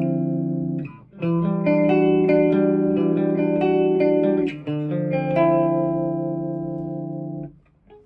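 Electric guitar, a Les Paul-style with P90 pickups, played through a Marshall JCM900 amp and a CE-1-style chorus pedal. Chords are struck and left to ring: a brief break about a second in, a new chord about four and a half seconds in, then the sound is cut off near the end.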